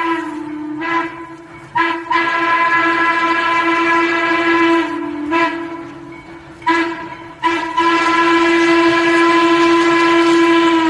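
Steam locomotive whistle blowing a series of blasts with short breaks between them, ending on one long blast of about three and a half seconds. It is a single steady note with a bright, rich tone that sags briefly in pitch as some blasts open.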